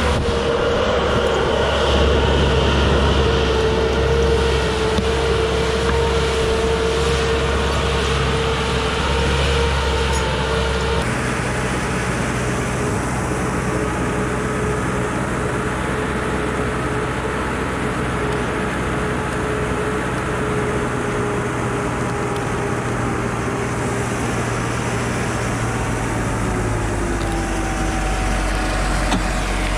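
Timberjack 240C log skidder's diesel engine running steadily, a low drone with a whine above it. The sound changes abruptly about eleven seconds in, and the whine dips in pitch near the end.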